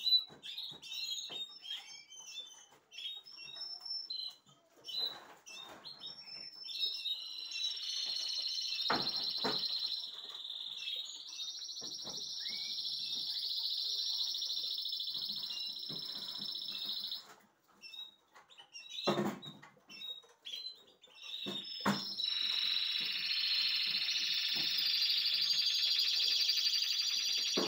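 Spanish Timbrado canaries singing: short chirpy phrases at first, then long high rolling trills held for several seconds at a time. A few short knocks come between them as the wooden show cages are handled.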